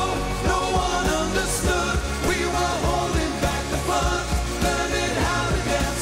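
Live pop music: a male voice singing over full band backing with a steady bass.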